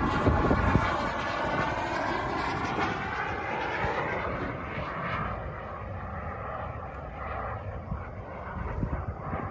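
Large RC model jet flying past overhead: a whine with a slight downward slide in pitch, growing fainter as the jet moves away.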